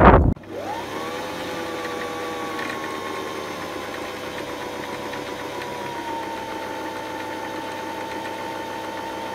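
Electric sewing machine's motor spinning up and running at a steady high speed while winding a bobbin: a constant whine that rises briefly at the start and drops slightly in pitch about six seconds in.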